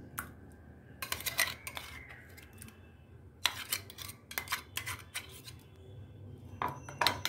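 A metal spoon scraping and clinking against a steel mixer-grinder jar and a glass bowl as a thick, coarse onion-garlic-ginger paste is scooped out, in several short bursts of clicks and scrapes.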